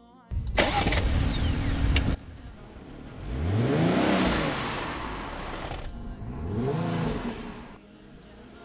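Small Suzuki hatchback engine revving twice, its pitch rising then falling each time, as the car, sunk in soft sand, is driven while men push it. A loud rushing burst fills the first two seconds.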